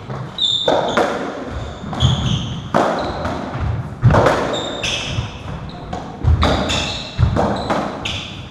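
Racketball rally on a squash court: the ball struck by racquets and smacking off the walls, about a dozen sharp hits in quick succession, with short high squeaks from players' shoes on the wooden floor between them.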